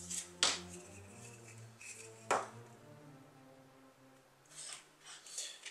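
Two sharp plastic clicks as the black plastic gearbox case parts of a Traxxas TRX4 kit are handled and knocked together, followed later by softer handling rustles, over faint background music.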